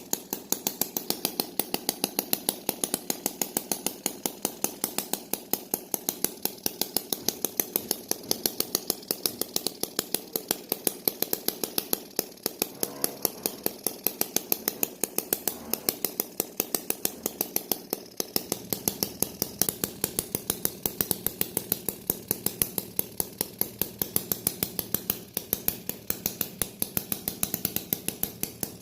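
A small mechanism clicking steadily, about three or four sharp clicks a second, over a steady mid-pitched hum.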